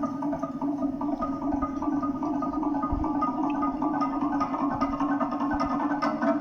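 Instrumental music: a steady low held drone under a fast run of repeated, bright plucked or mallet-like notes.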